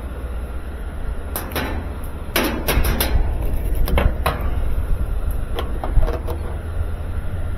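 Irregular knocks and clicks from handling the washing machine and its parts, about a dozen over several seconds, over a steady low hum.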